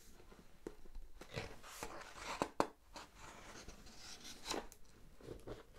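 A large page of a hardcover picture book being turned: a soft papery swish from about one to two and a half seconds in, ending in a sharp flap of the page, then light rustles of fingers brushing over the paper.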